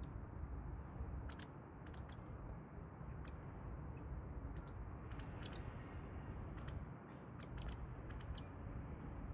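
White wagtail giving short, sharp chirping calls, scattered singly and in quick clusters of two or three, over a steady low background rumble.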